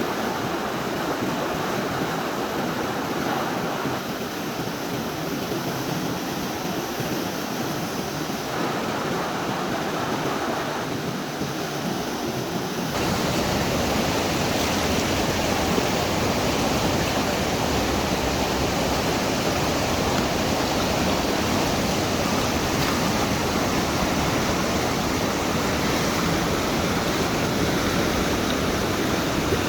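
Steady rush of a fast-flowing river. About thirteen seconds in it becomes louder and fuller, with more low rumble.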